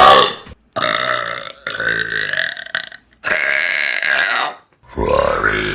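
Loud human burps, one long drawn-out belch after another, each about a second long with short breaks between them.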